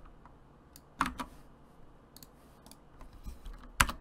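Computer keyboard keys and mouse clicks as an SSH command is typed and entered: a few scattered presses, a sharper one about a second in and the loudest just before the end.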